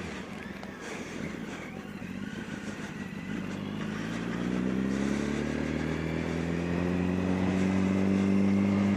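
Yamaha R1 motorcycle's inline-four engine under way on the road, accelerating in one gear: its pitch climbs slowly from a few seconds in, then holds steady near the end, over a rush of wind noise.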